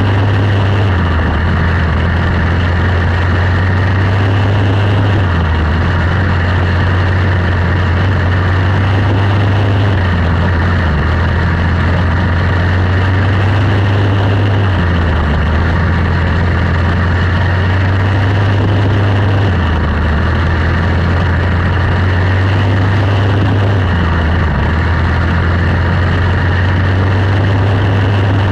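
Quarter midget race car's single-cylinder Briggs & Stratton Animal engine running at race pace, its note dipping and picking up again about every four and a half seconds, lap after lap, under a steady rush of noise.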